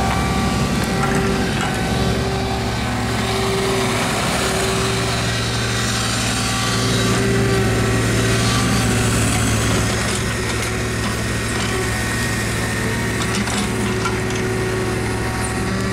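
Kubota U-30 mini excavator's diesel engine running steadily under hydraulic load, with a whine that comes and goes as the upper structure swings on its slewing ring.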